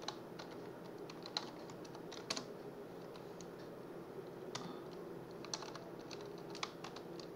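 Computer keyboard being typed on: scattered, uneven keystrokes with pauses between them, over a faint steady hum.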